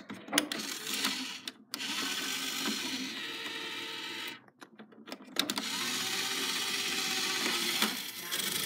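Mini toy claw machine's small electric motors whirring as the claw travels across the cabinet, cutting out briefly about one and a half seconds in and again for about a second midway, with a few sharp clicks as it stops and starts.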